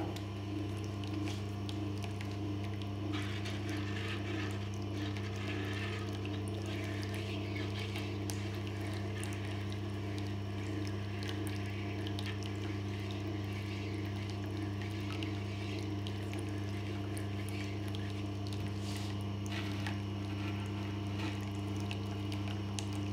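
Tormek sharpening machine switched on at the start, its motor running with a steady low hum as the leather honing wheel turns. Oil is being worked into the new leather wheel to condition it.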